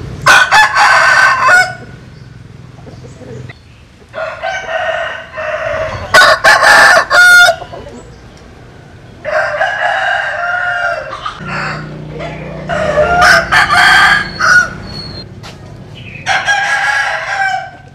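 Roosters of a Vietnamese-American crossbred butterfly chicken flock crowing again and again, about six loud crows in a row, with hens clucking between them.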